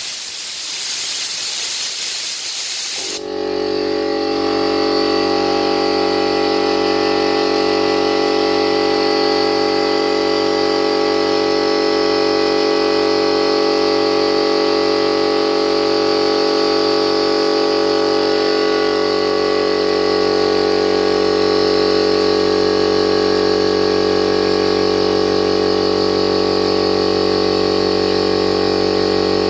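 Compressed air hissing out of an Aldi oil-lubricated air compressor's tank for about three seconds. The compressor's motor and pump then cut in and run steadily, refilling the tank.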